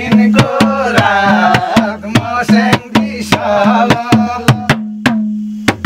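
Madal hand drum played in a quick, steady rhythm of about three or four strokes a second, its low head ringing under each stroke, with a man singing a Nepali folk song over it. The singing stops about five seconds in, and the drumming ends with a couple of last strokes.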